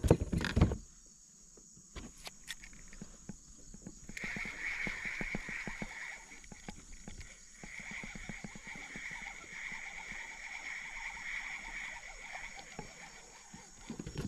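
A steady, high-pitched animal call chorus that starts about four seconds in, pauses briefly in the middle and then carries on, with scattered small clicks over it.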